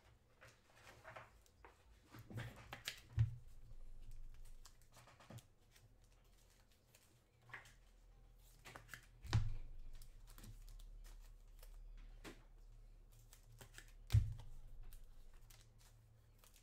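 Trading cards and packs being handled on a table: scattered light clicks and rustling, with three louder knocks spread through it.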